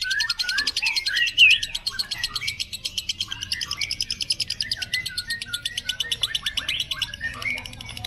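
Yellow lovebird singing 'ngekek': a long, fast, unbroken chattering trill with shorter chirps mixed in, thinning out near the end.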